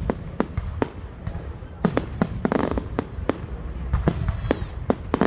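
Fireworks display: a quick, irregular run of sharp bangs and crackling bursts over a steady low rumble, with a brief whistling tone about four seconds in.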